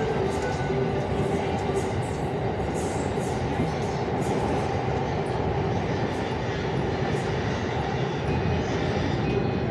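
JR Yamanote Line E235-series electric train running along the line, heard from inside the front car: a steady rumble of wheels and running gear with faint rail clicks.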